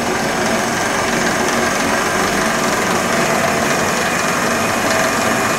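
Johnson Model J horizontal band saw running, its 3/4 hp electric motor driving the blade: a steady mechanical hum with a constant hiss.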